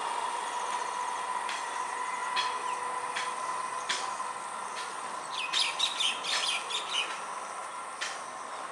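Birds chirping in a quick burst of calls a little past halfway, over a steady high hum that fades slowly.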